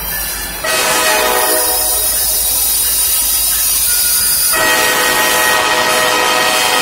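Norfolk Southern diesel locomotive's air horn sounding for a grade crossing as the train approaches. It comes on suddenly about half a second in and runs without a break, its chord changing about four seconds in.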